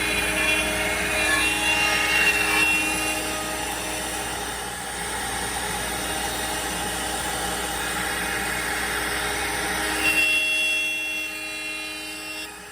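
CNC router spindle and end mill cutting wood, a steady whine over rough cutting noise. About ten seconds in the heavier low cutting noise eases off while the whine carries on.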